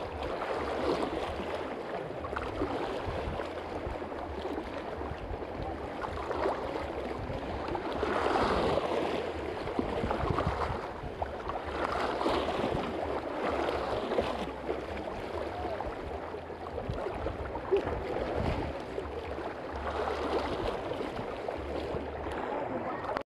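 Small sea waves lapping and splashing over shallow rocks, a wash that swells and fades every couple of seconds.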